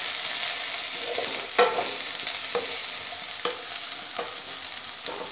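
Diced potatoes sizzling in hot oil in a kadai, a steady hiss that slowly fades, while they are stirred, with about five scrapes and knocks of the stirring utensil against the pan.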